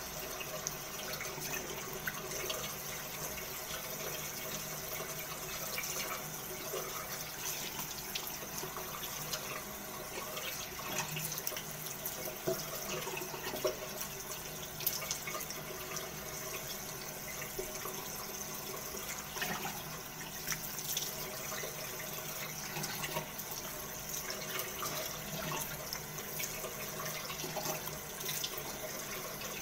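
Bathroom tap running steadily into a sink, with irregular splashes as hands cup the stream and splash water onto the face.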